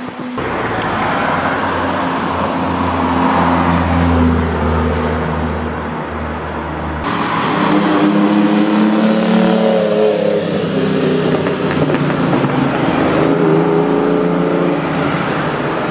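Sports car engines running in slow traffic with a steady deep hum, then, after a cut, a vintage open roadster's engine note rising as it pulls along the road, with tyre and traffic noise.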